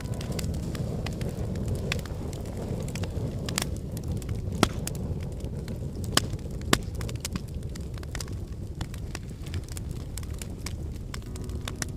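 Wood fire burning: a steady low rush of flames with frequent sharp crackles and snaps, and a few louder pops in the middle.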